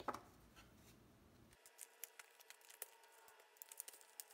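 Quiet handling of paper notebook inserts: faint rustles and small scattered ticks, with one sharper click at the start. A low background hum cuts out abruptly about one and a half seconds in.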